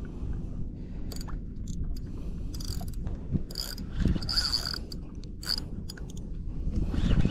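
Daido Spectre PS 4000 spinning reel ratcheting in bursts under load as a big cobia on the line pulls against the bent rod during the fight. A thin high tone comes in about three and a half seconds in and again around four and a half and five and a half seconds. A steady low rumble runs underneath.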